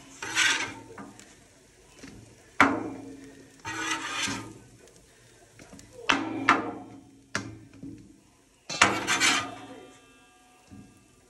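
Metal bench scraper and spatula knocking and scraping against a stainless steel mixing bowl and the flat-top griddle as chunky mashed potatoes are scooped into the bowl. About half a dozen sharp knocks come a second or two apart, some leaving the bowl briefly ringing.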